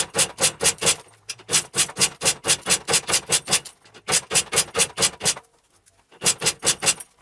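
Simson SR50's two-stroke 50 cc engine being cranked over without catching: a fast, even rasping chuff about five times a second, in four runs with short pauses between them. It is a failed start attempt with the spark too weak, which the owner suspects comes from a failing ignition condenser.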